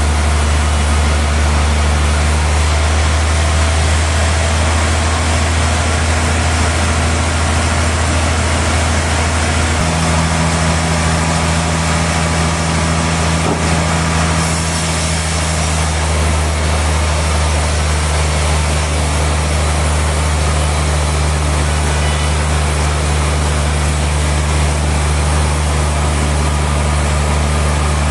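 Sawmill machinery running steadily, a loud low engine hum with a wash of mechanical noise over it; one part of the hum shifts slightly about ten seconds in.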